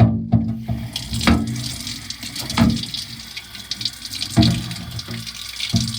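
Tap water running into a sink, with several knocks and clunks of things being handled in the basin.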